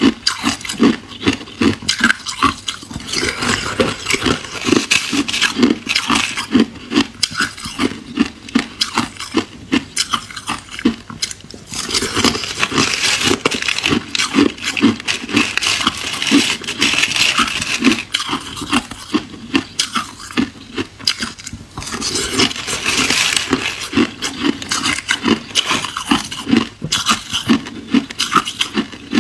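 Crushed clear ice being chewed close up, in quick irregular crunches. Around the middle and again later, a spoon scrapes and scoops through the ice in a clear plastic tray.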